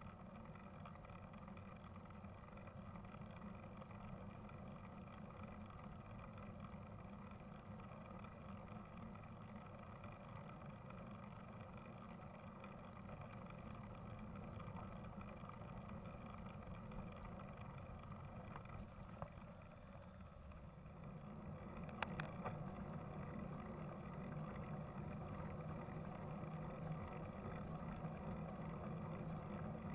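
Motorcycle engine running steadily on the move. Its note eases off a little about twenty seconds in, then picks up again, with a sharp click as it does.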